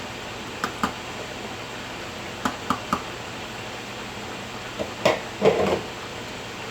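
A few light knocks and clinks of kitchen utensils against cookware, in small groups, the loudest cluster near the end, over a steady hiss.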